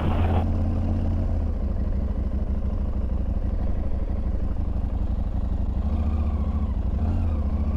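KTM adventure motorcycle engine running steadily as the bike is ridden, with a slight change in its note about six seconds in.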